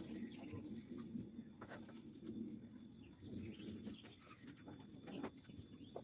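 Faint birds calling: repeated low calls with a few short chirps higher up.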